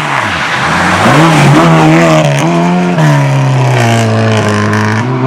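Race car engine revving hard through a slalom course. The note falls off at the start, climbs again about a second in, drops at about three seconds, holds lower, then climbs again near the end.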